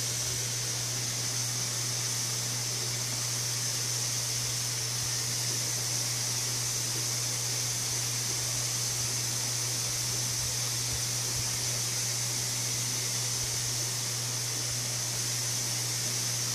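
Steady hiss with a low hum underneath, unchanging throughout.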